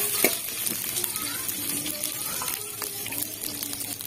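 Garlic, onion and ginger sizzling in hot oil in a stainless steel pot, sautéing, with a few sharp clicks of a spatula stirring near the start.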